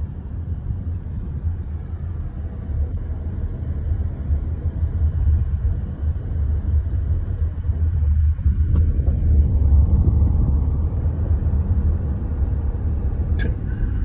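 Car driving down a road, a steady low rumble of road and engine noise that swells louder about two-thirds of the way through. A brief sharp click comes near the end.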